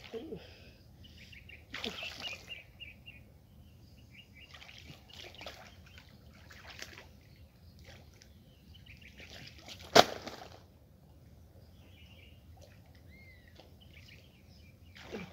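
Water splashing and sloshing as hands grope through a muddy, shallow pool, with one sharp, loud splash about ten seconds in. Birds chirp faintly in the background.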